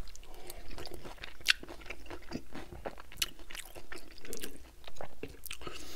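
Close-miked chewing of a mouthful of loaded tater tots, with many small, irregular wet crunches and mouth clicks.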